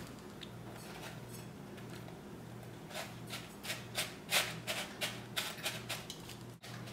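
Hands rustling and crumbling dry, fibrous potting material between the fingers and into a glass jar: a run of short crackly rustles over a steady low hum.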